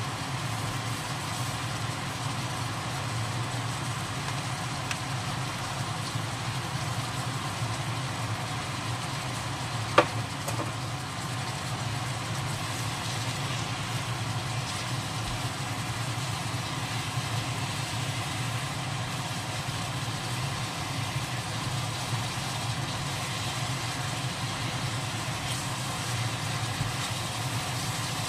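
Steady low hum with an even hiss while squid stir-fries in a non-stick wok, with a single sharp clack of the spatula or pan about ten seconds in.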